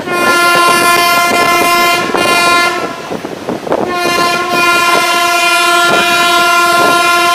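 Train horn sounding two long blasts on one steady note: the first lasts about two seconds, and the second begins about four seconds in. The clatter of the train's wheels over rail joints and points runs beneath, plainest in the gap between the blasts.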